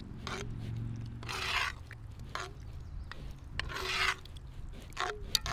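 Metal spoon stirring and scraping through thick tomato and ground-beef stew in a cast-iron Dutch oven, in several scraping strokes, the two longest about a second and a half and four seconds in.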